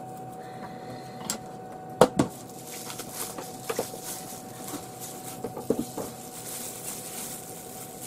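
Wooden chopsticks clacking down twice on a table about two seconds in, then plastic film crinkling and rustling as a food package is unwrapped, with a faint steady hum underneath.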